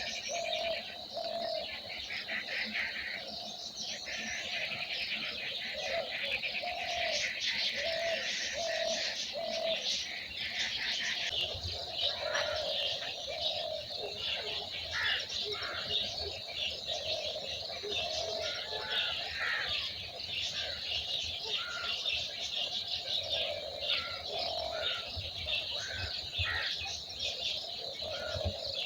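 A mixed chorus of small birds chirping and trilling busily, with low cooing notes from doves repeated throughout. A steady high tone runs underneath.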